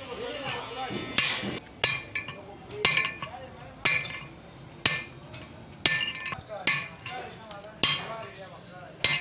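Hammer striking metal in a steady series of blows, about one a second, each with a short metallic ring, during work on a truck's rear wheel hub bearing.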